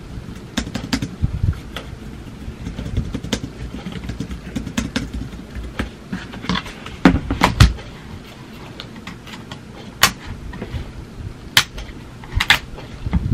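Keys of a compact keyboard clicking irregularly under fingertips, mixed with knocks and thumps of the keyboard and its parts being handled on a desk; two heavier thumps come about seven seconds in, and a few sharp clicks near the end.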